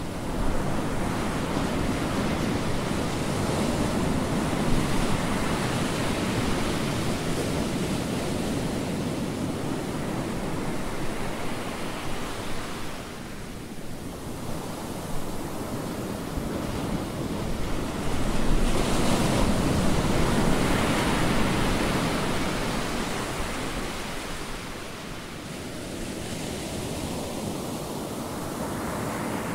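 Ocean surf breaking on a sandy beach: a continuous rushing wash of waves that swells and ebbs, dipping about halfway through and surging again with a big breaker a little past the middle before easing off near the end.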